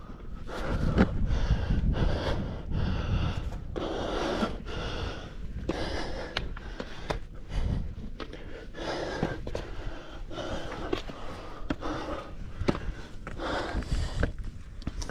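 A hiker breathing hard in quick, repeated panting breaths from the effort of climbing a steep rock scramble, with scattered sharp clicks and knocks.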